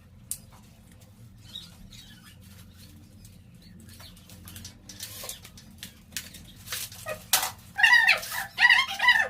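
A dog yelping several times in quick, short calls near the end, after scattered light knocks and clicks.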